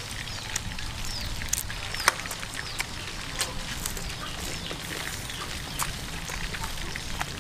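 Outdoor yard ambience: short bird chirps and scattered sharp clicks over a low steady hum.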